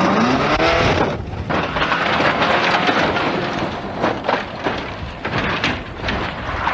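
A big old sedan's engine revving up as the car leaves the road, then a continuous rough rumble of the car crashing down through brush and over rocks. Several sharp knocks and cracks come from about four to six seconds in.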